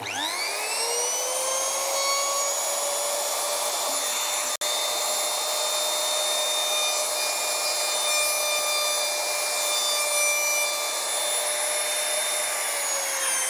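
Small electric trimmer router switched on and spinning up with a rising whine, then running at a steady high pitch as it cuts a hinge mortice into the wooden box. Near the end it winds down with a falling whine as it is switched off. The sound cuts out for an instant about four and a half seconds in.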